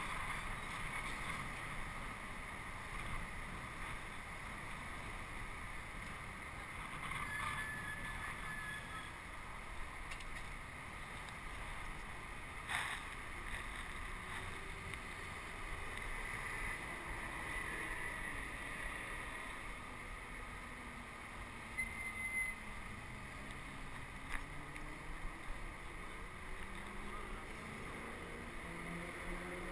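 Steady wind and rolling rumble from riding fast over pavement, with a few short clicks. Near the end a hum glides up and down in pitch.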